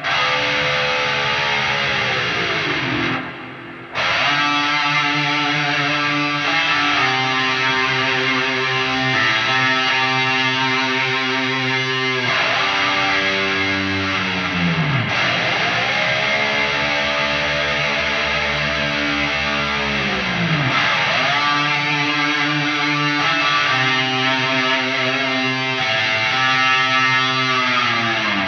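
High-gain distorted electric guitar, through an NDSP amp plugin, playing sustained lead notes that dive down in pitch several times. It goes briefly quieter about three seconds in, then carries on.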